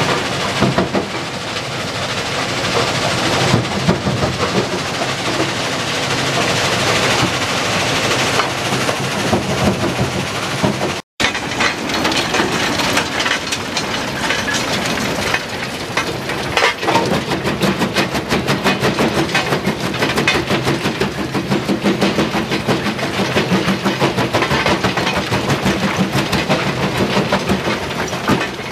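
Rock crushing plant running: a dense, steady clatter of machinery and rock. After a brief cut about a third of the way in, a vibrating feeder pan loaded with rock shakes with a fast, even, rhythmic rattle.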